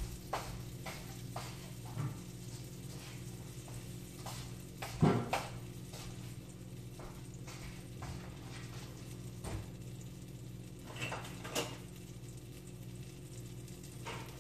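Butter heating in a wok with a faint sizzle over a steady low hum, broken by a few scattered knocks and clinks of kitchenware, the loudest about five seconds in.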